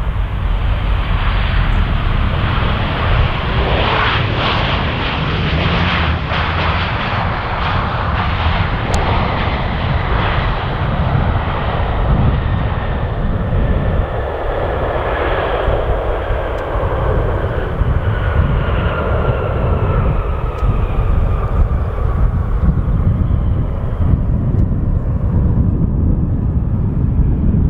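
A Ryanair Boeing 737-800's twin CFM56 jet engines at high power as it rolls down the runway. There is a steady deep rumble, and a whine that slides down in pitch as the plane moves away.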